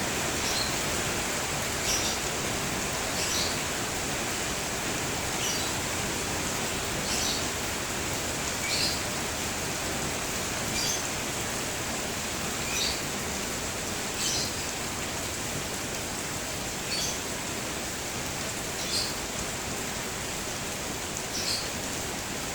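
Steady rain falling, with a bird chirping over it, one short high chirp every couple of seconds.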